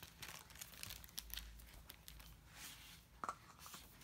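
Faint rustling and crinkling of a paperback picture book's pages being handled and turned.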